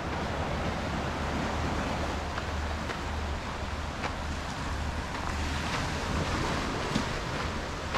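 Small waves washing over a rocky shoreline, with wind rumbling on the microphone. Faint footsteps tick along a sandy path about every half second to second.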